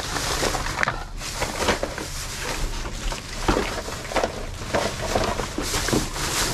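Plastic trash bags rustling and crinkling with irregular clicks and clatters of small items being rummaged through, over a steady low rumble.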